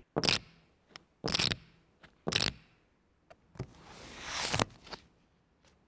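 Close-miked poker chips clicking as they are picked up and dropped: three short clatters about a second apart, with a few light ticks between. Then a swish of playing cards being handled on the felt table, growing louder for about a second before it stops abruptly.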